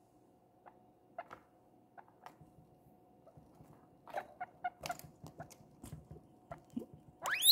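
Guinea pig making scattered soft clicks and a few short squeaks, then breaking into a loud rising wheek just before the end.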